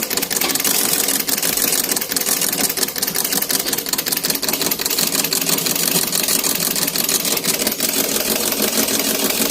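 Antique Singer treadle sewing machine running under foot-pedal pumping, a fast, steady mechanical clatter. The owner says the machine is not in good running condition, though the treadle still works.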